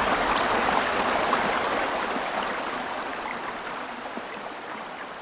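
White-water stream rushing over rock rapids: a steady hiss of running water that slowly fades.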